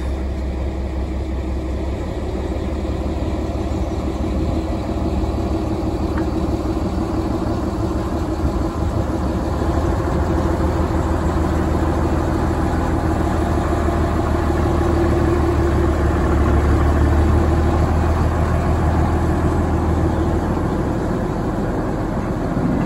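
Fowler diesel shunting locomotive's engine running steadily as it moves past hauling a brake van, growing somewhat louder about two-thirds of the way through, then easing slightly.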